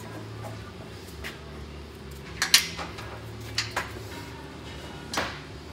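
Metal S-hook clinking and clanking as it is handled and fitted to a strip of rubber belt: a few sharp clinks, the loudest pair about two and a half seconds in, more about three and a half and five seconds in, over a steady low hum.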